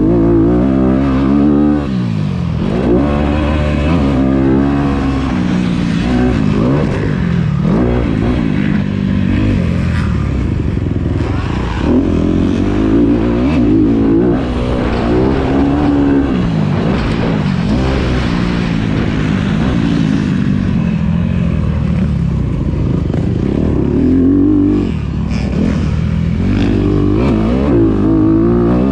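Dirt bike engine heard from on the bike, revving up and falling back over and over as the throttle opens and closes around a motocross track.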